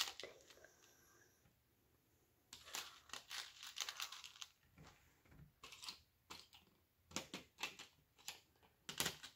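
Faint clicking and rustling of small plastic Lego pieces being picked through and moved on a paper sheet, quiet at first, then a flurry of clicks a couple of seconds in and scattered single clicks after.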